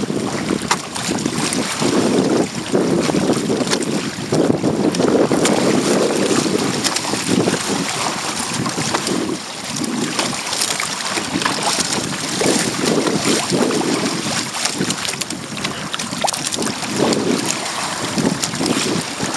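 Wind buffeting the microphone in irregular gusts, over the wash and splash of choppy water against the hull of a Hobie Tandem Island sailing kayak under way.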